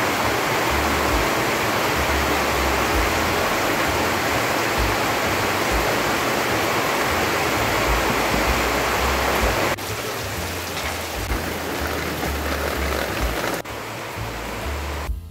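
Loud, steady rush of water noise, like heavy rain or a fast stream, with a low pulsing bass beneath it. The rush drops in level about ten seconds in and again a little before the end.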